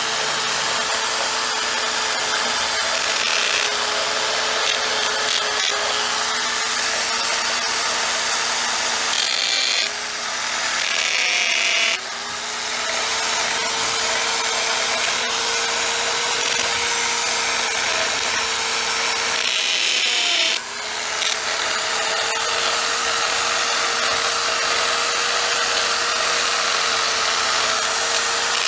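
Angle grinder with a masonry blade cutting a groove into hard cement-stabilized earth block: a steady high motor whine over harsh grinding noise. Twice, around ten to twelve seconds in and again about twenty seconds in, the motor briefly slows and spins back up.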